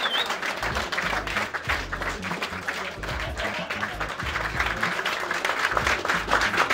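A crowd applauding, the clapping swelling near the end, over background music with a pulsing bass.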